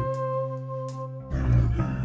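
Background music: steady held notes, then a fuller passage comes in about a second and a quarter in.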